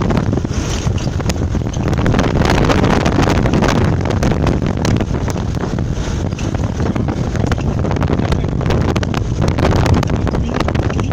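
Wind buffeting the microphone over the steady rumble of a vehicle driving on a rough dirt road, with many small knocks and rattles.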